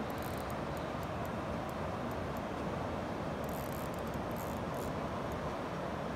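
Steady rushing roar of water pouring through a dam's spillway gates into the river, an even rumble that does not change.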